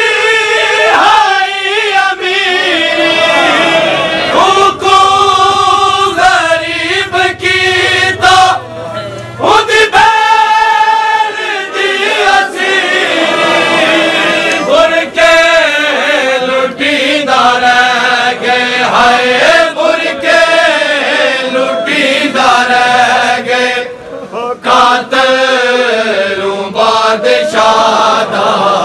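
Men chanting a Punjabi Shia mourning kalam (lament) for Bibi Sakina, with a lead reciter's voice and a group of voices together.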